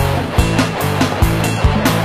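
Instrumental Latin rock with shred electric guitar, bass and drums hitting on a steady beat.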